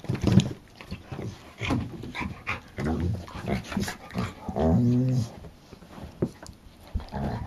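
An adult dog and a puppy play-wrestling, with a string of short low growls and grunts and one longer growl about five seconds in.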